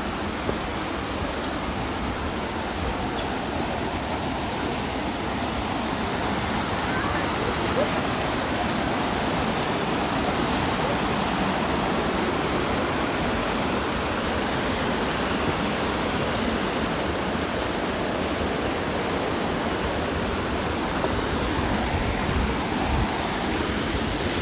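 Waterfall pouring into a rock pool: a steady, even rush of water.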